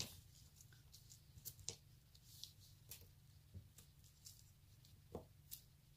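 Near silence, with a few faint scattered clicks and light rustles from a metal link chain necklace being handled on a cloth-covered table.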